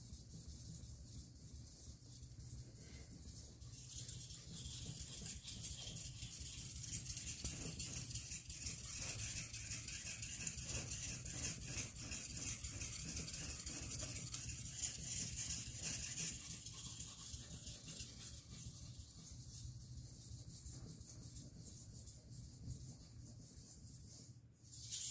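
Steel kitchen-knife blade being rubbed back and forth on a whetstone: a continuous gritty scraping that grows louder after a few seconds and eases off in the last third.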